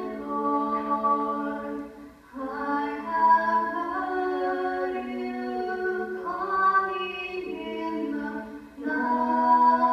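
Two girls singing a duet into microphones, played back through a television's speaker. They sing in long held notes, with three short breaks between phrases.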